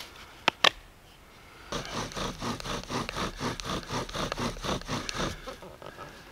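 Bow drill worked fast: a spruce spindle grinding into a spruce fireboard, a rhythmic rasping squeak with each back-and-forth stroke of the bow, about five or six strokes a second for three and a half seconds. It starts nearly two seconds in, after two sharp clicks. The spindle is heating at both ends, more in the green-birch top block than in the board.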